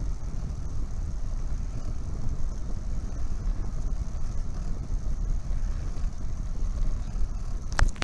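Steady low rumble of a moving bicycle: tyres rolling on a paved path with wind buffeting the microphone, and a sharp click or two near the end.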